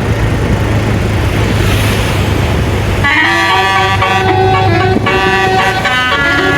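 Low engine hum and traffic noise, then about three seconds in a bus's basuri telolet horn starts playing a tune of short notes stepping up and down in pitch.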